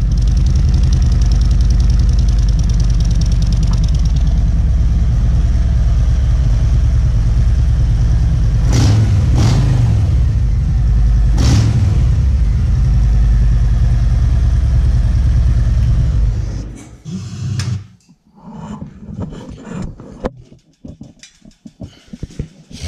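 Motorcycle engine running steadily through newly fitted Drag Specialties 4-inch black slip-on mufflers, a deep exhaust note that is not a whole lot louder than stock. It shuts off about 17 seconds in, followed by a few light clicks and knocks.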